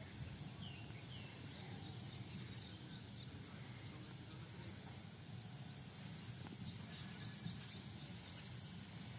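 Birds chirping faintly, many short high calls scattered throughout, over a low steady rumble.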